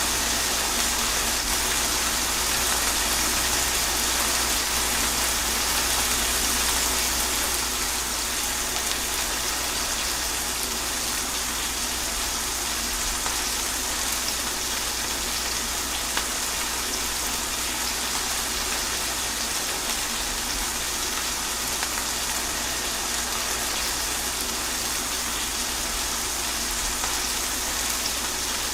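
Steady rain falling, a continuous even hiss with a few faint drop ticks here and there.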